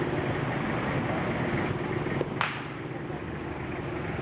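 Crowd chatter and street traffic, with one sharp crack about two and a half seconds in.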